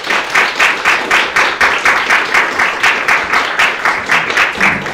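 Audience applauding at the end of a talk, with sharp, evenly spaced claps about five a second standing out over the general clapping.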